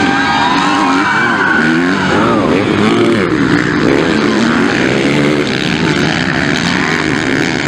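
Motocross bike engines revving hard, their pitch climbing and dropping again and again as the riders accelerate and shift, with several bikes overlapping.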